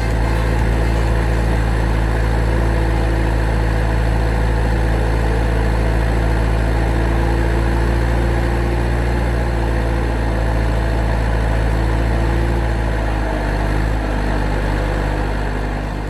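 A heavy engine idling steadily, a low even drone whose pitch shifts slightly about thirteen seconds in.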